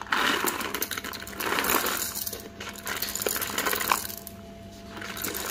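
Whole roasted coffee beans poured from a bag into a metal hand coffee grinder, rattling and clattering against the metal, in a couple of pours with a short lull about four seconds in.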